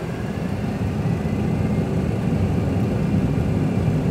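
Simulated jet engines of a Boeing 737 Classic flight simulator spooling up to takeoff thrust: a low rumble that builds in loudness over the first second, with a faint high whine over it.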